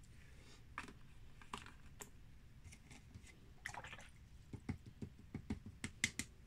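Faint scattered clicks and light taps of painting supplies being handled on a tabletop, coming quicker and sharper about five seconds in.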